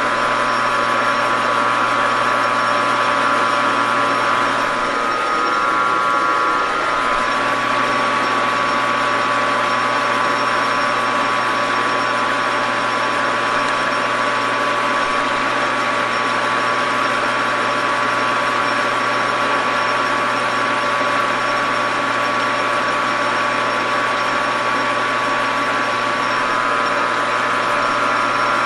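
Grizzly G4003 metal lathe running at about 360 rpm while a cutoff tool is hand-fed into a spinning 3/8-inch rod to part it off. There is a steady machine whir with a set of high whining tones that fade out after several seconds and come back near the end.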